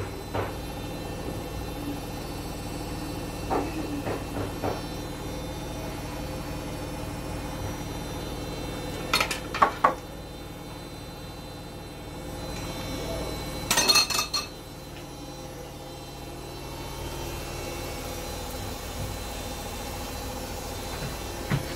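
Sfenj dough rings frying in hot oil with a steady sizzle, broken by a few soft clicks around four seconds in and two bursts of sharp clinks of pans and utensils, about nine and fourteen seconds in.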